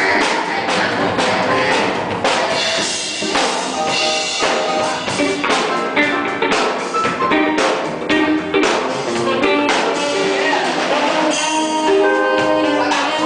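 An orchestra playing an instrumental piece, with regular drum-kit strikes over held instrumental notes that grow stronger near the end.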